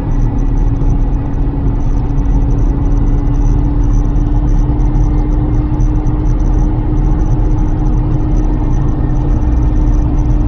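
Lotus Carlton's 3.6-litre twin-turbo straight-six pulling the car along at a steady pace, its engine note holding nearly level over a low road and drivetrain rumble.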